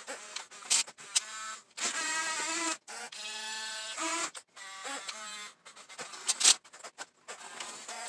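Electric gear motors of a 1/24 scale Diecast Masters RC excavator whirring in stop-start bursts about a second long as the boom lifts and the bucket curls, with a few sharp clicks in between.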